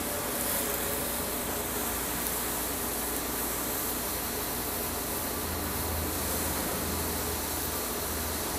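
Steady hiss of food cooking in a steel wok over a gas burner: the flame and the liquid simmering around chicken and green onion.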